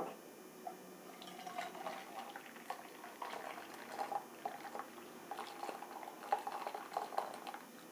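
Melted jaggery liquid being poured through a sieve: a faint, uneven trickle and dripping with small clicks.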